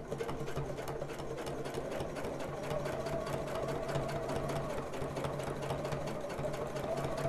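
Juki sewing machine running at a steady speed, stitching down underwire channeling: a fast, even stitch rhythm over a steady motor hum.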